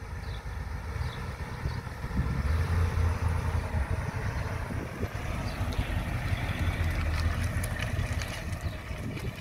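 Ford Econoline E350 motorhome driving slowly past, its engine running with a low drone that grows louder about two seconds in as it comes close and stays loud while it goes by.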